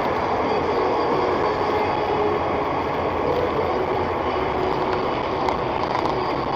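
Steady road noise heard from inside a car's cabin on a wet highway: tyre hiss off the wet surface under a constant engine and wind drone.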